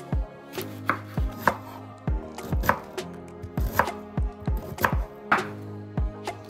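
Kitchen knife slicing an onion into half-rings on a wooden cutting board: a quick, uneven run of crisp cuts, each ending in a knock on the board, about two to three a second.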